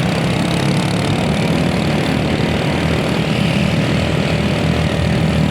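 Large bus diesel engine running steadily at low revs, a constant low drone.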